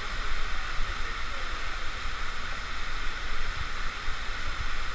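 Waterfall pouring into a plunge pool: a constant rush of falling water, with an unsteady low rumble underneath.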